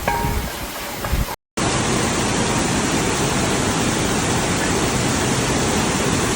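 Steady rush of fast-flowing floodwater that starts abruptly about a second and a half in, after the tail end of some plucked-string music.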